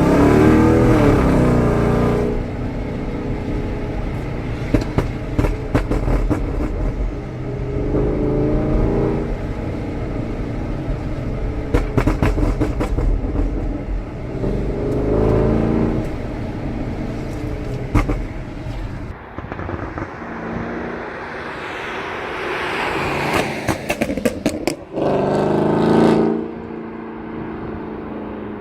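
Porsche Cayenne S 4.8-litre V8 exhaust revved up several times, each rev followed by a rattle of pops and crackles as the revs fall. The crackling comes from the Stage 1 tune with the second catalytic converters removed.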